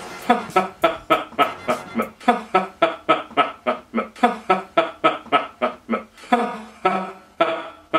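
A man laughing at length: a steady run of short 'ha' bursts, about three or four a second, thinning to fewer, more spaced laughs near the end.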